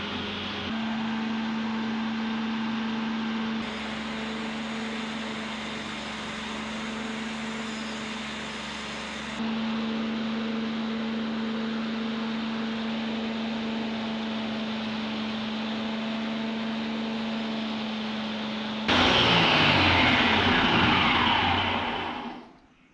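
Electric motor of a workshop belt grinder running with a steady hum. Near the end it gets louder with a whine that falls in pitch, then fades away.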